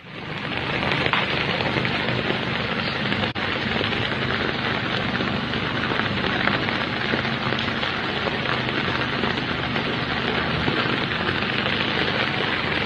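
Heavy rain falling, a loud, steady hiss that starts suddenly and keeps on without a break.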